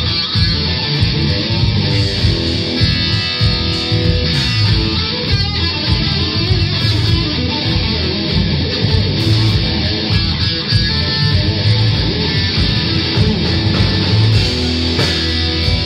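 Rock band playing live: electric guitars over bass and drums, loud and continuous.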